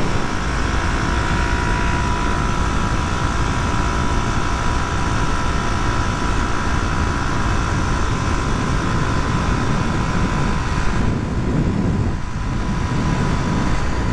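Suzuki DR250 motorcycle's single-cylinder engine running at a steady cruise under way, loud and noisy, with wind noise on the microphone. The sound eases briefly about eleven seconds in.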